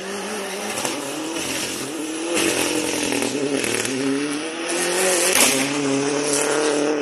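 Rally car engine at full throttle on a gravel stage, its revs rising and falling through gear changes as the car slides through a corner and passes close. Loose gravel and dirt hiss under the tyres.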